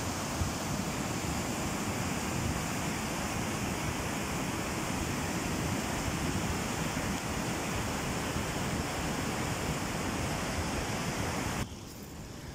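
Mudflow torrent, muddy water and debris rushing down a gully in a steady, loud rush. Near the end it drops suddenly to a quieter rush of shallower running water.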